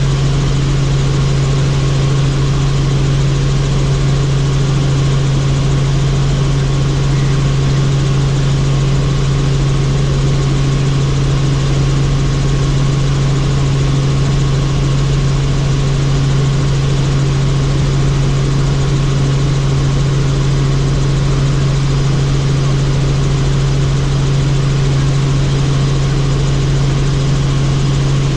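Helicopter in flight: a loud, steady drone of engine and rotors with a constant low hum, unchanging throughout.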